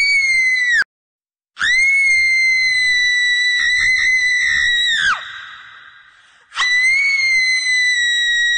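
Shrill, high-pitched screams: a short one cut off abruptly, then a long held shriek that drops in pitch at its end and echoes away, then another long shriek beginning about three-quarters of the way through.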